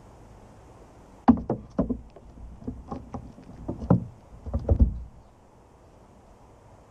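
A squirrel's feet knocking and scrabbling on a hollow plastic bin lid as it lands, snatches peanuts and leaps off. It makes a run of thumps and taps over about four seconds, the loudest as it lands and again near the end.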